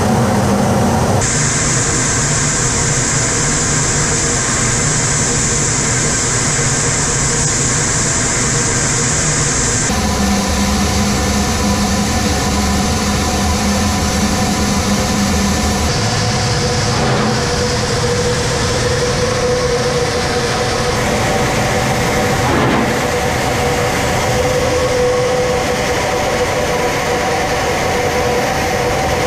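Jet engines and rushing air inside a Su-25 attack jet's cockpit, a loud, steady noise with a few held tones. A high whine sits over it in the first part, and the sound shifts abruptly a few times as the footage cuts between flights.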